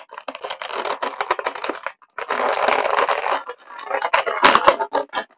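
Clear plastic blister packaging crinkling and crackling as a large action figure is forced out of its tray, in two long stretches followed by sharp snaps of the plastic near the end.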